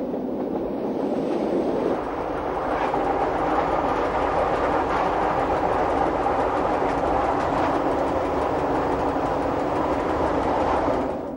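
Electric metre-gauge train of the Berner Oberland-Bahn running along the track, a steady rolling rail noise that drops away near the end.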